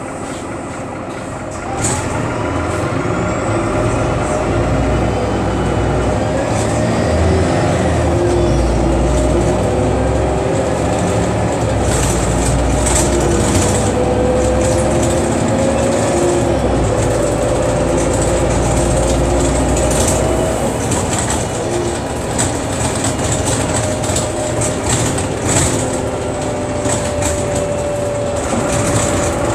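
Cabin ride noise inside an Irisbus Agora L articulated city bus under way: a steady engine and road rumble, a whine that rises and falls in pitch with speed, and frequent rattles from the fittings. The noise gets louder about two seconds in.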